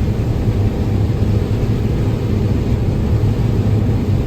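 John Deere 9760 STS combine running steadily while harvesting corn, a loud, even low hum with no change in pace.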